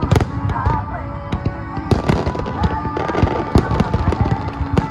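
Aerial fireworks bursting in a dense finale barrage, many bangs and crackles overlapping several times a second, over a song with a singing voice.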